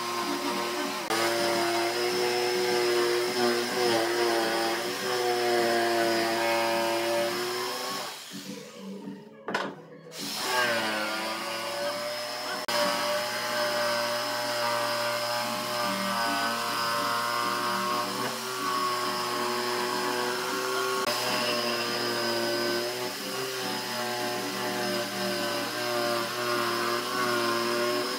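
Makita jigsaw cutting a curve in a wooden board, its motor pitch wavering as the load changes. About eight seconds in it stops briefly, then restarts and winds back up to cutting speed.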